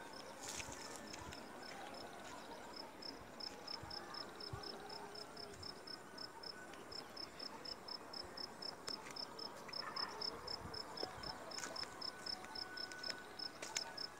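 An insect chirping steadily: a long run of short, high-pitched pulses, about four a second.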